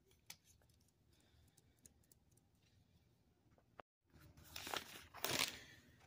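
A few faint clicks of Lego pieces being handled. After a short break in the sound, paper rustles and crinkles in two swells as a handwritten notebook is handled.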